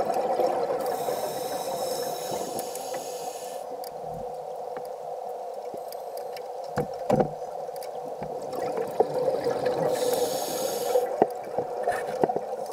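Underwater sound of scuba breathing through a regulator: two long hissing breaths, one near the start and one about ten seconds in, over a steady hum, with a couple of knocks a little past the middle.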